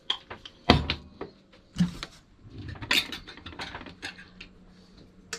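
A metal cooking utensil clinking and knocking against a pot while fish sausages are turned and lifted out, a string of separate sharp knocks, the loudest a little under a second in.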